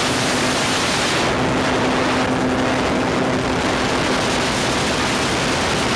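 Heavy wind rushing over the microphone in an open-cockpit gyrocopter in flight, easing briefly in its hiss a couple of times. Underneath it is the steady drone of the 1000cc four-stroke Yamaha RX1 snowmobile engine turning the propeller at cruise.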